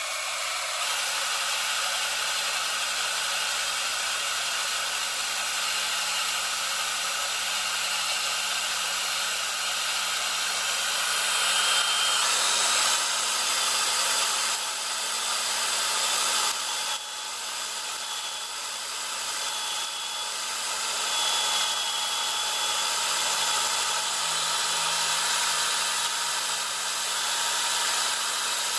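Cordless drill running steadily, its bit cutting a hole into a cast-iron LS engine block through a drill-guide bushing. The motor's tone steps up slightly in pitch partway through and dips briefly once.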